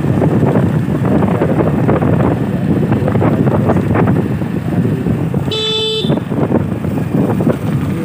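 Wind buffeting the microphone over the steady running of a motorcycle being ridden, with one short vehicle-horn toot about five and a half seconds in.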